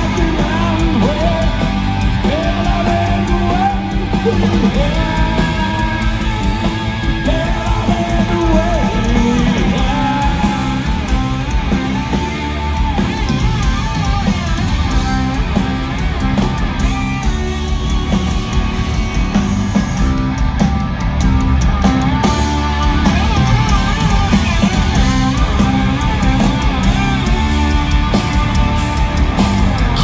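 Loud live hard-rock band music: an electric guitar lead with bent notes over bass guitar and drums, heard from the audience in a large venue.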